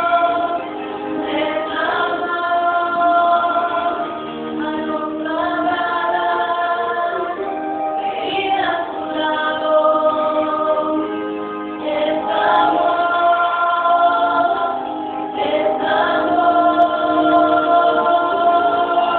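Mixed choir of men and women singing together, holding long notes in phrases a few seconds long with short breaks between them.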